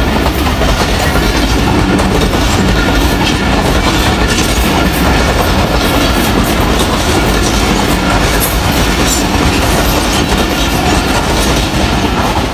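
Passenger train coaches passing close by: a loud, steady rumble and rush, with the wheels clicking rapidly over the rail joints.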